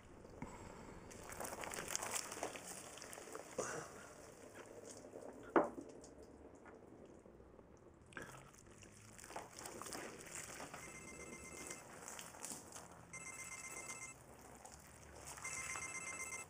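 A phone ringing in repeated bursts of a high electronic trill, starting about eleven seconds in. Before that there is light clatter of pint glasses and beer being handled, with one sharp knock of glass about five and a half seconds in.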